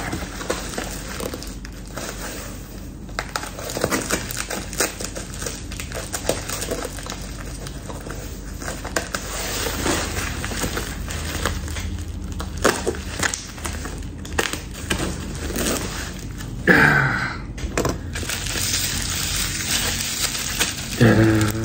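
White packing sheet and bubble wrap being handled and crinkled by hand during an unboxing, a steady run of irregular crackles and small clicks.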